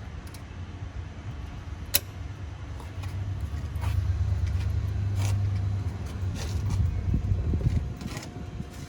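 Metallic clicks and clinks of exhaust springs being hooked between tailpipe, silencer and flange, one sharp click about two seconds in and a few lighter ones later, over a low rumble that grows louder in the middle.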